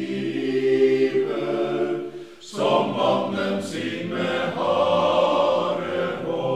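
Background film music: a choir singing long held chords, with a new, fuller chord coming in about two and a half seconds in.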